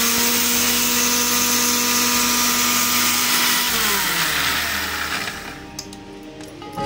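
Electric mixer grinder (mixie) running loud and steady, coarsely grinding ajwain seeds and garlic cloves. Nearly four seconds in it is switched off and its motor winds down, the whirring fading away.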